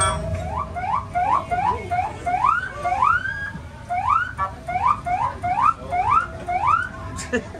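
Electronic siren sounding a run of rising whoops, about two to three a second, some short and some drawn out, with a steady tone under the first couple of seconds.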